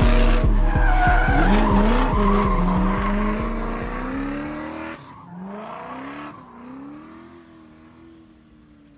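Instrumental trap beat fading out at the end of the song: the bass-drum pattern stops about four and a half seconds in, leaving sliding, wavering tones that die away.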